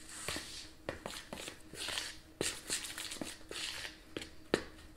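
A hand mixing a dough of baking mix, shredded cheddar and milk in a mixing bowl: irregular soft squishing and rustling, broken by a dozen or so sharp knocks and clicks of hand and bowl.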